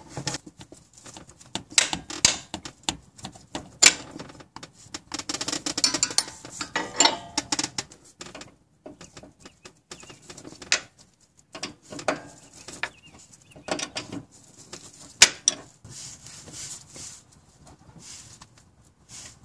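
Irregular metallic clinks and clicks of a flare-nut wrench and hand tools on the power steering high-pressure line's flare nut at the steering rack as the freshly loosened nut is worked off. The clicking is dense for the first several seconds, then sparser, with one sharper knock about fifteen seconds in.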